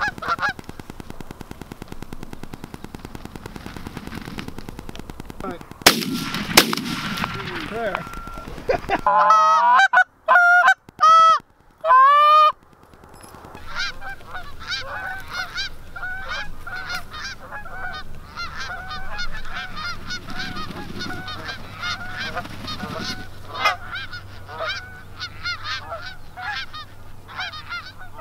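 A flock of Canada geese honking over and over as they come in. A run of very loud, close honks comes about ten to twelve seconds in, and two sharp cracks come about six seconds in.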